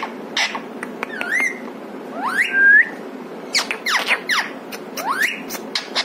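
Indian ringneck parakeet calling with short clicks and a series of whistles that swoop steeply upward, one held briefly at the top a little over two seconds in.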